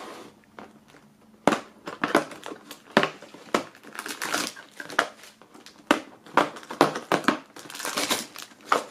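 Perforated cardboard doors of an advent calendar being pressed in and torn open, with the crinkly plastic foil wrapper of a puzzle ball being handled. Irregular snaps and crackles start about a second and a half in.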